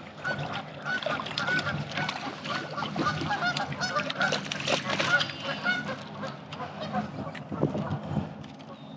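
A flock of geese honking, many short calls overlapping one another, thinning out over the last few seconds.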